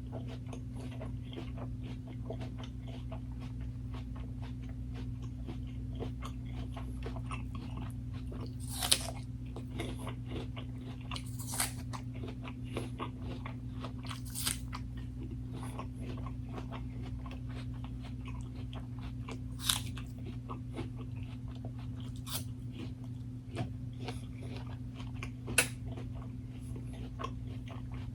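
A person chewing and biting food close to the microphone: a run of small crunching clicks, with about six louder, sharper clicks spread through.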